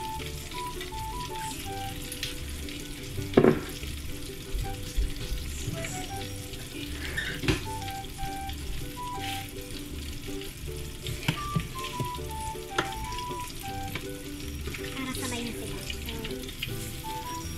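Shrimp deep-frying in a saucepan of hot oil: a steady sizzle and bubbling, broken by scattered clicks and a sharp knock about three seconds in. A simple tune of short notes plays over it.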